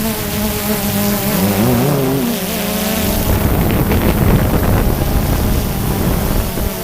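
DJI Phantom 2 quadcopter's motors and propellers buzzing steadily, the pitch wavering up and down as the drone manoeuvres, with wind rushing on the microphone.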